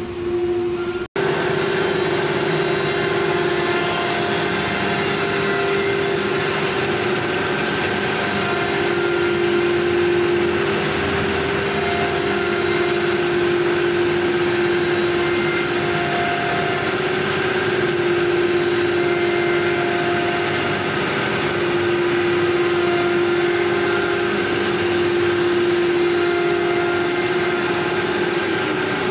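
9 kW air-cooled ATC spindle of a CNC wood router running at high speed while machining a sheet: a steady whine that shifts slightly in pitch now and then, over a broad hiss of machine noise.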